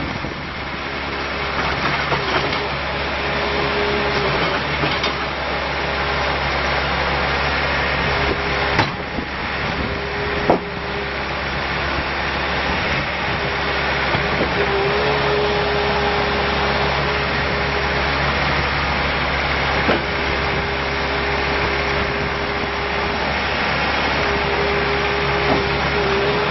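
2014 Bobcat S510 skid steer loader's diesel engine running steadily, with a whine that comes and goes and a few sharp knocks.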